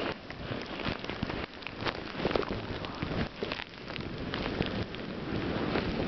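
Footsteps crunching and rustling through deep fresh snow, an irregular crackle with sharper crunches every second or so.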